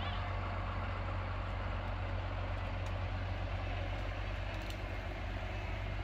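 Case IH MX120 farm tractor's diesel engine running steadily as it drives slowly past, with a deep low rumble.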